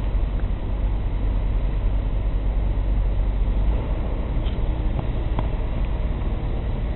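Steady low rumble of engines and traffic, with a few faint short clicks.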